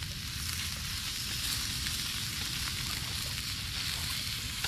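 Barracuda fillets frying in butter on a portable cooktop griddle: a steady sizzling hiss with faint crackles over a low rumble.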